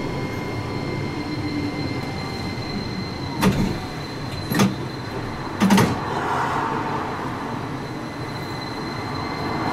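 Toyohashi Railroad T1000 tram running along street track, a steady rumble of wheels and running gear with a faint steady whine. About a third of the way in come three sharp clacks roughly a second apart as the wheels cross the track.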